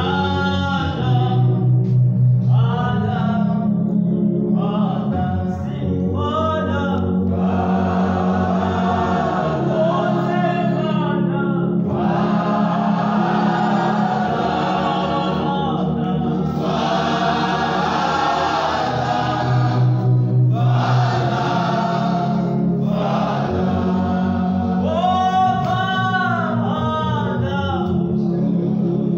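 A worship song sung by a choir over a steady, sustained low accompaniment.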